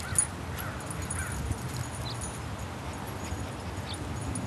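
Three short, faint animal calls in the first second and a half, then a couple of fainter high chirps, over a steady low background rumble.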